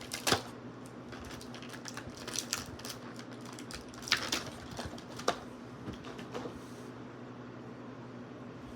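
Plastic toy packaging being handled as small plastic parts are pulled out: scattered clicks and crinkles, a few sharper ones about four and five seconds in, over a steady low hum.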